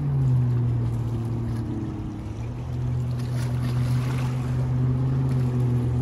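Motorboat engine running, a low hum that holds a steady pitch.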